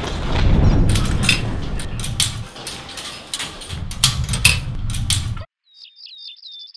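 Busy clatter and sharp knocks of people moving through a kennel area, with a chain-link kennel gate's latch being worked. About five seconds in it cuts off suddenly, and small birds start chirping near the end.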